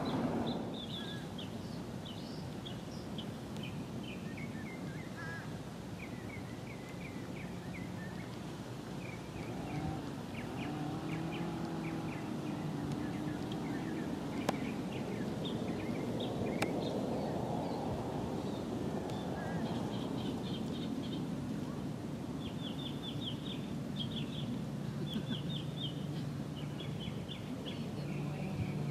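Small birds chirping in quick short series, over a steady low hum.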